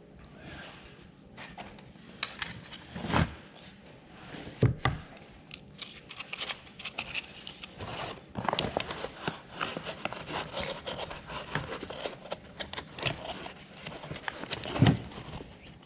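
Hands working on engine parts: irregular clicks, scrapes and rustling, with a few louder knocks, one about three seconds in, one near five seconds and one near the end.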